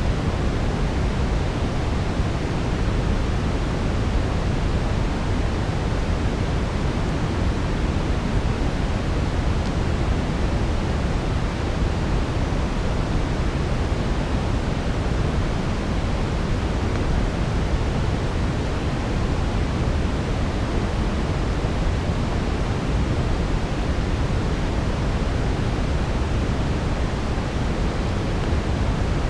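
Steady brown noise, an even deep hiss strongest in the low end, layered with a soft fireplace texture. No distinct crackles stand out.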